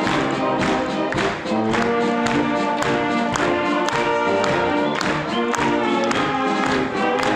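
Bavarian brass band playing with a steady beat: tubas, trombones and clarinets together, with a tuba carrying the bass line.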